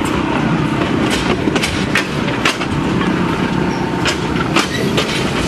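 Excursion train rolling along the track: a steady rumble of wheels on rail, with sharp clicks at uneven intervals as the wheels pass over rail joints.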